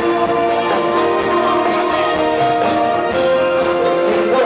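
Music with long held notes, played loud and steady.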